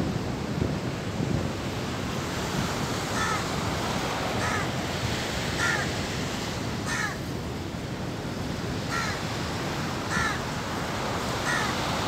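A bird calling about seven times, a short call roughly once a second starting a few seconds in, over steady low background noise.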